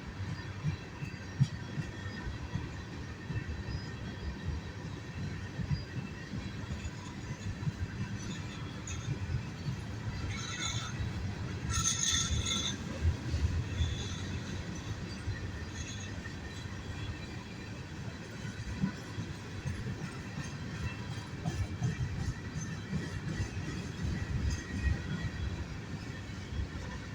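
Freight cars of a CSX Herzog train rolling past, their wheels knocking over rail joints the whole time. A brief high wheel squeal comes about halfway through.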